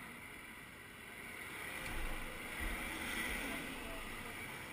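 A van drives past close by: engine and tyre noise swells to a peak about two to three seconds in, then fades as it moves off down the road. Wind buffets the microphone with low thumps.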